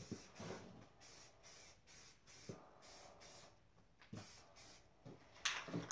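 Aerosol spray paint can hissing in short bursts, about two a second, the loudest near the end, with a few faint knocks in between.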